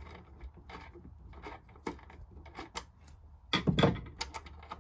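Screwdriver working a screw on a small metal bracket in an RV power converter panel, with a run of light metallic clicks and scrapes. A louder clatter of handling comes about three and a half seconds in.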